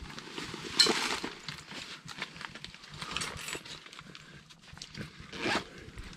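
Owls calling with harsh, noisy screeches, the two loudest about a second in and near the end, with fainter calls between. Light clinks of a metal ladle against a cast iron pot.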